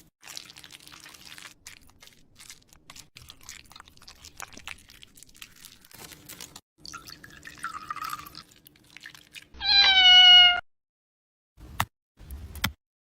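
A cat meowing once, a loud drawn-out cry of about a second that falls slightly in pitch, about ten seconds in, after faint clicking and rustling; a few short thumps follow near the end.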